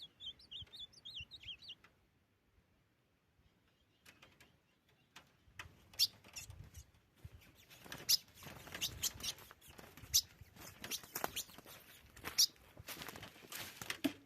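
Ultramarine grosbeak (azulão) calling with a quick run of short chirped notes, then a pause, followed by a long stretch of sharp clicks and rustling with several loud snaps.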